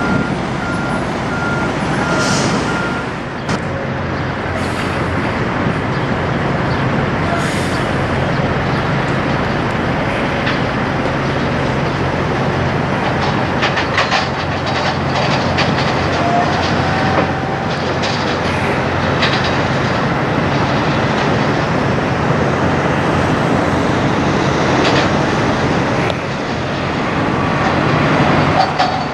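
Diesel semi-trucks pulling tractor-trailers past at low speed: steady engine drone with tire and road noise, over a few separate passes.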